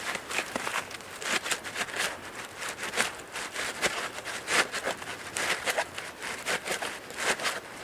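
Nylon ratchet strap being worked through the hole of a foam pool noodle, with a run of irregular rubbing, scraping and rustling.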